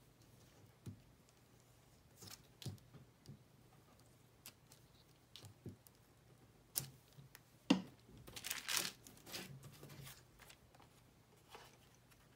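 Paper handled on a tabletop: a glue stick rubbed along paper flaps, then patterned paper pieces pressed, folded and aligned, with soft rustling and light scattered taps. A sharp tap about two-thirds of the way through is the loudest sound, followed by a second or so of rustling.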